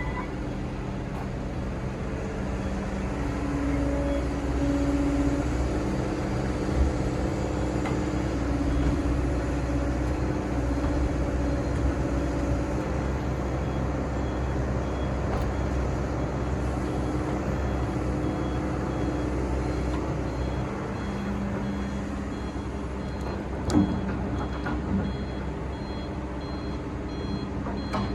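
Diesel engine of an excavator running under changing hydraulic load, its pitch rising and falling as it works. A reversing alarm starts beeping about two-thirds of the way in, with a single metallic clank near the end.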